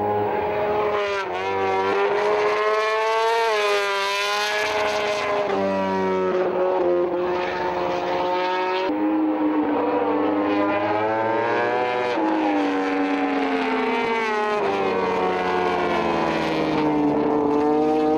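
Honda RC213V MotoGP racing motorcycle's 1000cc V4 engine running hard on track, its pitch rising and falling over and over, with several sudden breaks as it shifts gear and comes off and back on the throttle.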